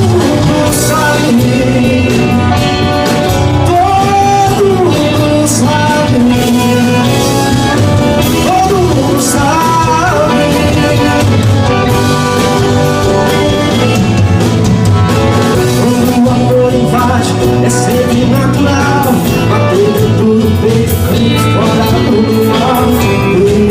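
Music: a Portuguese-language pop song played by a band, with a melodic line over a steady beat.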